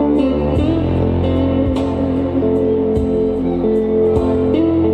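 Slow music with sustained low bass notes that change every second or so, pitched tones above them, and a few light ticks.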